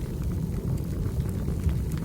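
Wood fire burning in a fireplace: a steady low rumble with a few faint crackles.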